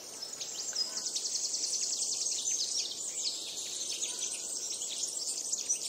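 Woodland birdsong: several birds giving high chirps and fast trills over faint background hiss, growing louder over the first couple of seconds.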